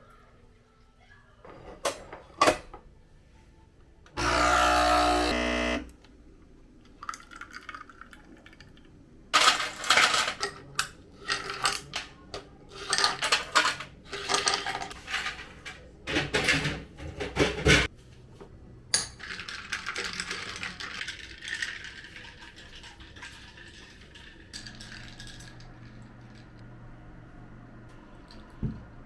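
Kitchen handling sounds: dishes, pots and utensils clattering and knocking in quick runs. About four seconds in comes a loud buzz lasting under two seconds. After the clatter, a hiss fades out over a few seconds.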